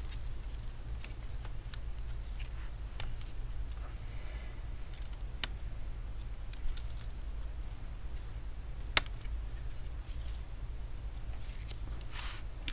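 Scattered small clicks and ticks of gloved fingers working the CPU fan's cable connector and plastic parts inside an opened laptop, over a steady low hum. The sharpest click comes about nine seconds in.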